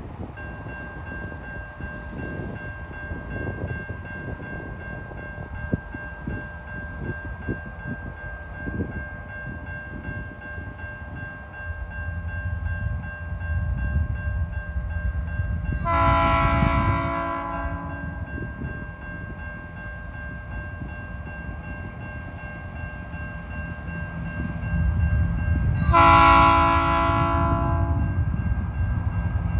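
Tasrail diesel locomotive 2051 sounding its horn twice, each blast about two seconds long and about ten seconds apart, as it approaches with an empty coal train; the low rumble of the train grows louder toward the end. A steady high tone sounds throughout.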